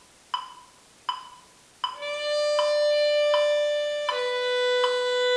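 Metronome clicking steadily at 80 beats a minute. About two seconds in, a violin enters with a slurred legato bow stroke: a held D, then about two seconds later a held B in the same bow, each note three clicks long.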